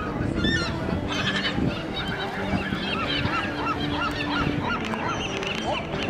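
A flock of gulls calling, with many short, arched cries overlapping; near the middle, one gull gives a quick run of repeated cries, about four a second.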